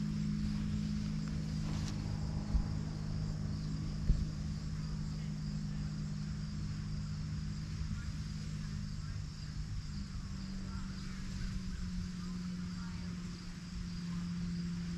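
Crickets trilling steadily over a low, steady hum whose pitch shifts slightly about ten seconds in. Two brief thumps come about two and four seconds in.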